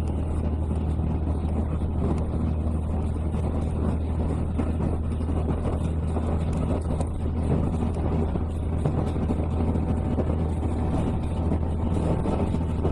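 Diesel railcar running at speed, heard from inside the passenger cabin: a steady low drone and rumble with no changes.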